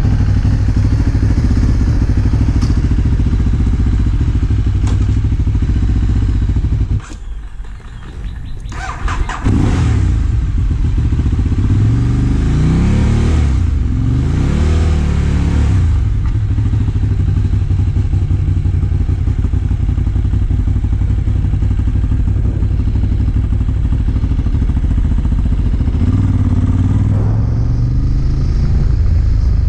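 Ducati motorcycle engine running at idle. Its sound drops out briefly about seven seconds in and comes back about two seconds later. The revs then rise and fall as the bike pulls away, and it runs steadily at road speed.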